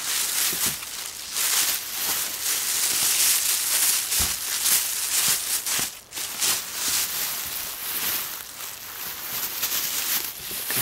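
Thin plastic shopping bag crinkling and rustling as it is handled and closed up, with irregular crackles throughout.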